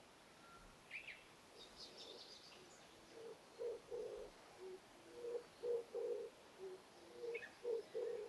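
A dove cooing: a low hooting phrase of several notes, repeated about every two seconds, starting about three seconds in. A few high chirps from small birds come about one and two seconds in, and once more near the end.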